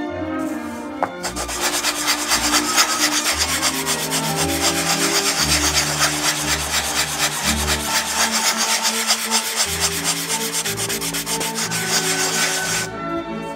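A small hand block rubbed rapidly back and forth across the wooden braces of a guitar plate to shape them, a fast, steady rasping that starts about a second in and stops just before the end.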